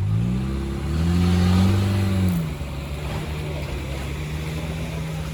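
Off-road 4x4's engine revving up and holding high for a moment, then dropping back about two and a half seconds in to a steady lower running.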